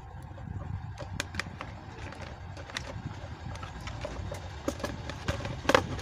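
Scattered light clicks and knocks of plastic table-fan parts being handled and fitted, the loudest knock near the end, over a low steady rumble.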